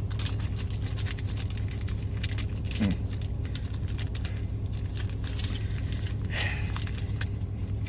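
Foil Pokémon booster pack crinkling and rustling in the hands as someone struggles to tear it open, over a steady low hum from the car.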